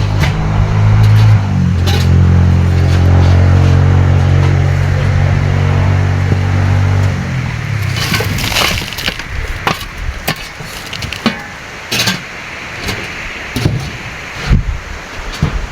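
An engine running steadily, which cuts off about seven seconds in; after it, scattered knocks and clatter.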